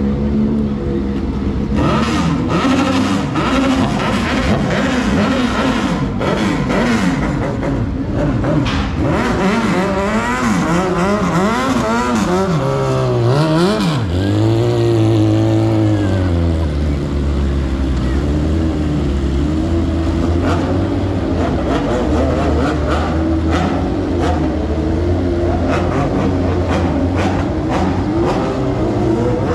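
Sport motorcycle engine revved hard, the revs swinging up and down repeatedly for the first half, then held high and steady from about halfway through a rear-tyre burnout.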